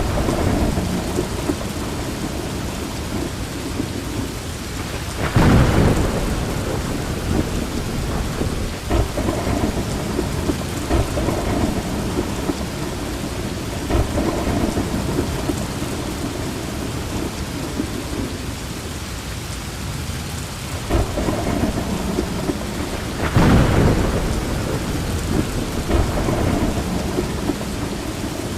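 Heavy rain falling steadily, with rolling thunder: two louder claps about five seconds in and again a little past twenty-three seconds, and lesser rumbles in between.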